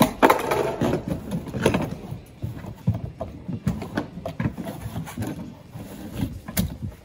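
Irregular knocks, bumps and rustling of a driver in a helmet and racing suit scrambling out of the cockpit of a small three-wheeled prototype car, body and boots knocking against the car's shell.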